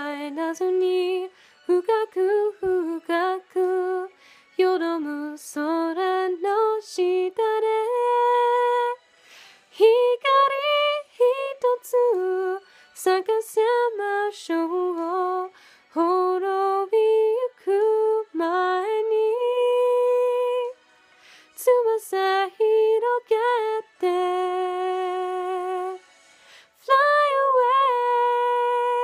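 A young woman singing solo without accompaniment, in phrases separated by short pauses, with several long held notes; the last held note, near the end, wavers with vibrato.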